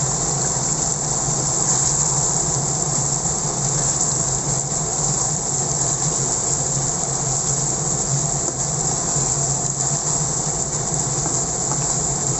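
Chicken simmering in thick red chilli sauce in a wok, with a steady sizzling hiss and a steady low hum underneath.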